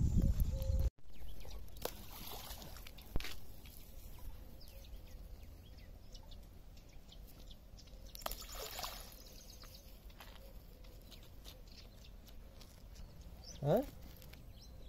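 A loud low rumble cuts off abruptly about a second in, followed by quiet pondside ambience with faint bird chirps and scattered small clicks. About eight seconds in comes a brief splash as a handful of bait lands on the water.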